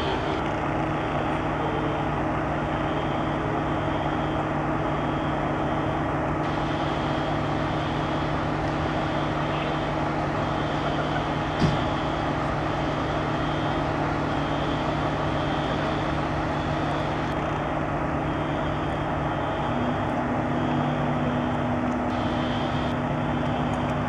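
Parked fire engines' diesel engines idling with a steady hum, with a faint high beep repeating about once a second and one sharp click about halfway through.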